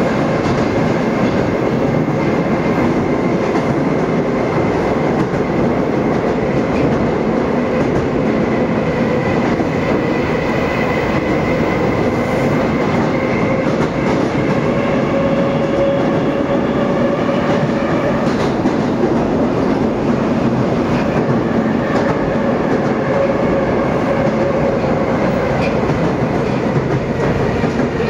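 A Moscow 2024 (81-775.2) metro train running at speed through a tunnel, heard from inside the car: a steady rumble of wheels on rail with a steady whine from the electric traction drive that drifts slightly in pitch.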